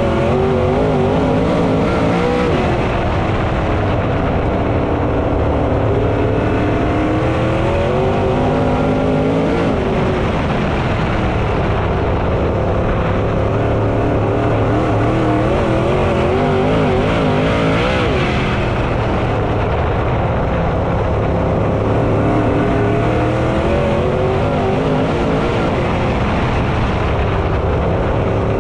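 Dirt late model V8 race engine running hard on track. Its pitch rises and falls again and again every several seconds as it comes off and on the throttle through the corners.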